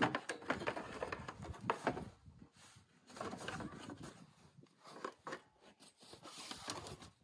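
Hard plastic body panel of a Honda ATV being worked loose and lifted off: irregular rubbing, scraping and light clicks and knocks of plastic against plastic and the frame.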